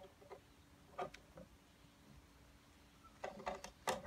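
Light plastic clicks and taps as the wing-mirror cap is handled and prised at: a couple about a second in, then a quick cluster near the end.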